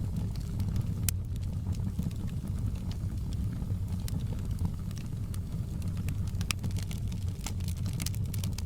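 Fireplace fire crackling: scattered sharp pops and snaps over a steady low rumble of burning, with the pops coming thicker near the end.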